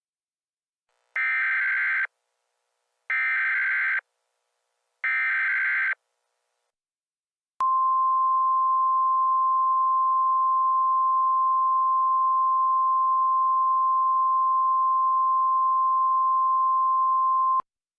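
Emergency Alert System tones: three one-second bursts of SAME header data, about a second apart, then a steady single-pitch attention tone near 1 kHz lasting about ten seconds that cuts off suddenly.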